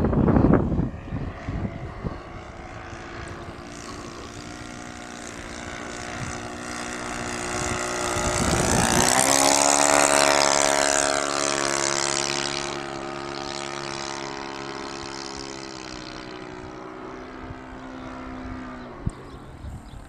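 Radio-controlled scale model of a Miles Sparrowhawk (Seagull Models), its motor and propeller droning as it makes a low fly-past. The sound grows louder to a peak about halfway through, drops in pitch as the plane passes, then fades away. Wind buffets the microphone at the start.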